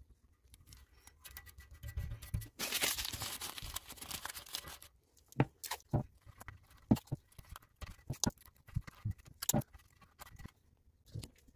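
Masking tape being pulled off the roll in a long rip about three seconds in, followed by scattered light knocks and clicks as the tape and tank are handled.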